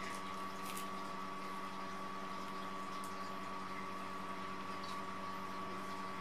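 Steady electrical or motor hum with a constant high whine over a low drone, broken only by a few faint ticks.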